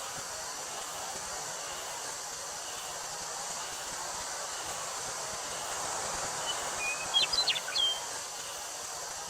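Steady rustle of wind through a wheat field with a constant high drone of summer cicadas. About seven seconds in, a bird gives a brief call of a few quick, sharp chirps.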